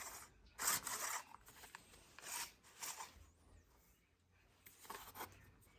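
Pull cord of a Stihl BG86C leaf blower's recoil starter rubbing through its guide as it is wound onto the starter pulley: a handful of short, quiet rasping sounds.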